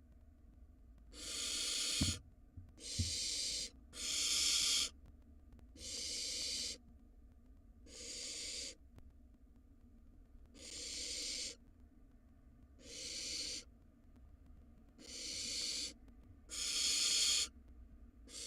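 Barn owl nestlings making their rasping, hissing begging calls: about ten drawn-out hisses, each about a second long, coming every second or two. There are two brief low knocks about two and three seconds in.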